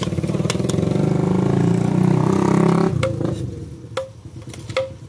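A small motorcycle engine runs with a pulsing note that climbs in pitch and cuts away about three seconds in. After it, a metal spatula clinks against the steel wok three times, each strike ringing briefly.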